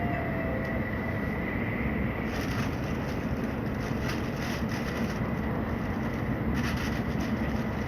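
Tokaido Shinkansen train running at speed, heard from inside the passenger cabin: a steady rushing rumble with a thin, constant high tone. The hiss grows stronger about two seconds in and again near the end.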